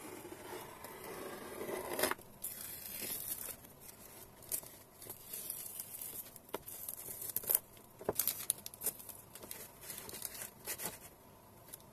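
Masking tape being peeled off the edges of watercolor paper, with irregular crackling rips and clicks, stopping shortly before the end.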